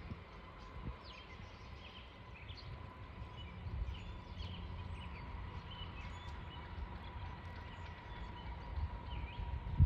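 Outdoor ambience: scattered short bird chirps over a low, uneven rumble with soft thumps, and a faint steady high tone.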